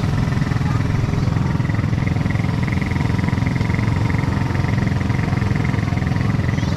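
Small vehicle engine running steadily, a fast even low rumble with no change in speed, typical of an ATV being ridden.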